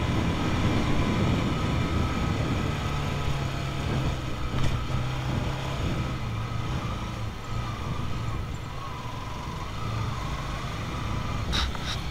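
Motorcycle engine running steadily while riding, with a low hum and road rumble throughout and a couple of brief ticks.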